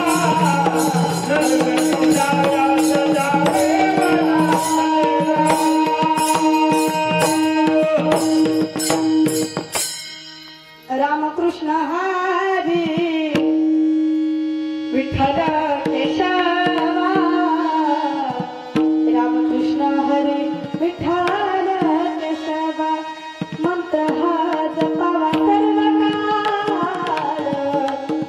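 Devotional bhajan music: fast, steady clashing of small tal hand cymbals with a pakhawaj (mridang) barrel drum and a held steady note. About ten seconds in, the cymbals stop and a single voice sings a winding, ornamented melody over drum strokes.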